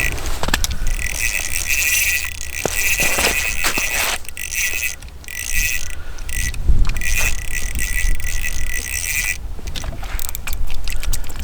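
Small ice-fishing reel being cranked in bouts to bring up a hooked fish, its mechanism clicking rapidly, with wind rumbling on the microphone.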